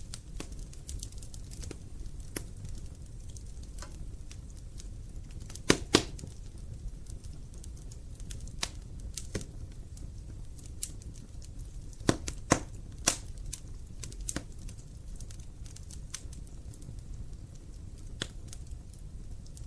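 Wood fire in a fireplace crackling: a low steady rumble of the flames under scattered sharp pops and snaps from the burning logs. The loudest pops come as a pair about six seconds in and a cluster around twelve to thirteen seconds in.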